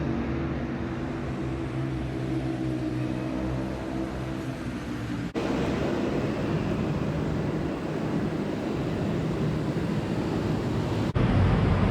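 City road traffic noise, with a steady low engine hum for the first few seconds; the sound cuts abruptly about five seconds in and again near the end, each time to a fresh stretch of traffic noise.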